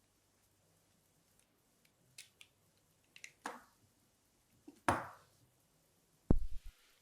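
Small clicks, taps and knocks of fishing-reel parts and tools being handled during disassembly, a few scattered strokes with a sharper knock about five seconds in, then a heavy low thump near the end.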